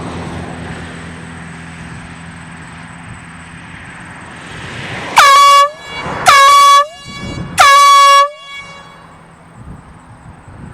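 Air horn sounding three short blasts about five seconds in, each rising quickly to a steady pitch: the all-clear warning signal before the explosive demolition charge is fired.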